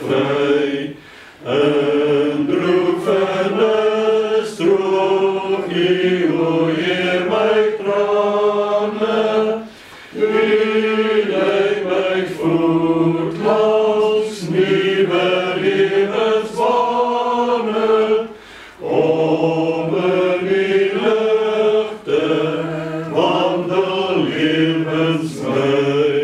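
Small congregation singing a psalm together in long, slow phrases. There are brief breathing breaks between lines, roughly every nine seconds.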